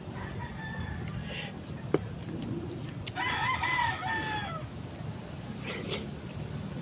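A rooster crowing once, a call of about a second and a half starting about three seconds in. A single sharp click comes about two seconds in.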